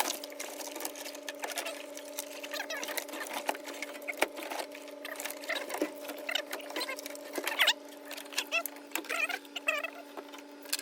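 Wiring harness being pulled out of a car: irregular clicking, rustling and short squeaks from wires, plastic connectors and loom rubbing as they are worked free, over a steady low hum.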